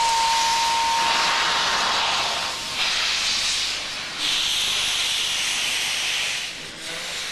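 Large steam locomotive moving off slowly, steam hissing from its open cylinder drain cocks in three long gusts, the last dying away near the end. A thin steady high tone fades out in the first second or two.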